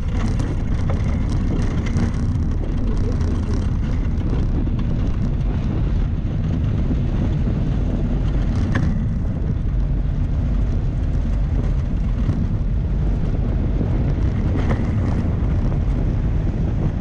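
Wind rushing over the microphone and the wheels of an unpowered soapbox cart rolling on tarmac as it coasts downhill, picking up speed, with a couple of sharp knocks.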